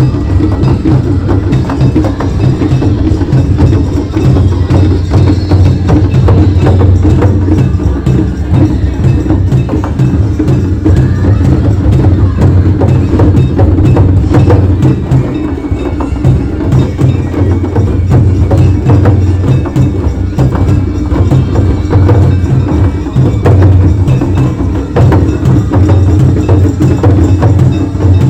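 Japanese festival-float hayashi music: taiko drums beating a fast, steady rhythm with other struck percussion clacking and ringing over it, loud and close.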